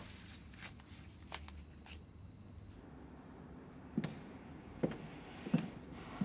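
A few soft rustles and clicks of a small object handled in the hands. About four seconds in, footsteps begin on a hard floor at a steady walking pace, four steps roughly 0.7 s apart.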